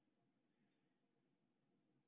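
Near silence: a faint, steady low hiss.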